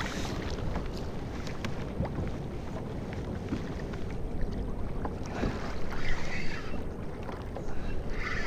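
Wind rumbling on the microphone over water lapping and sloshing against a plastic sit-on-top kayak's hull, with a couple of light knocks and brief splashy hisses.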